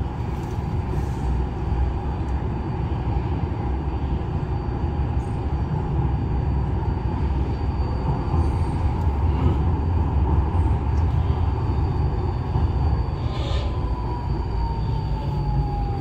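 Incheon subway train running, heard from inside the car: a steady low rumble with a faint whine. About 13 seconds in there is a brief hiss, and the whine begins to fall steadily in pitch.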